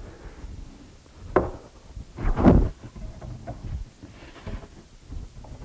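Wooden boards being handled on a wooden workbench: a sharp knock about a second and a half in, a louder, longer bump about a second later, then a few light taps.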